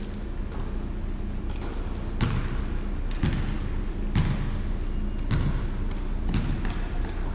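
A basketball being dribbled on a hardwood gym floor, bouncing about once a second, each bounce echoing in the gym.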